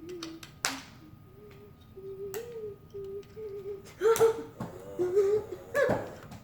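A person humming in short, wordless held notes, broken up by a few sharp clicks and louder vocal yelps about four and six seconds in.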